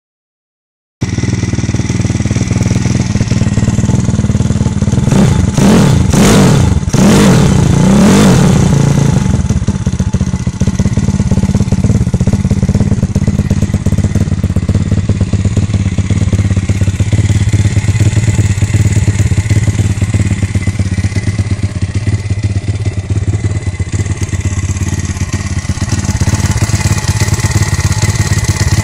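Stomp 140 pit bike's air-cooled four-stroke single-cylinder engine idling, blipped through three quick revs about five to eight seconds in, then settling back to a steady idle. The freshly overhauled engine runs smoothly.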